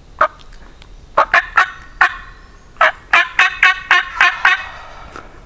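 Wild turkey calling at close range: one short note, four more over about a second, then a quick run of about eight notes that trails off.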